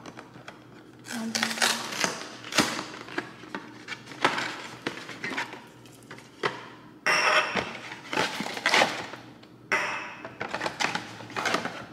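Cardboard boxes of aerosol bug-fogger cans being opened and unpacked: rustling and scraping of cardboard in several spells, with a few sharp knocks as the metal cans are handled and set down on a countertop.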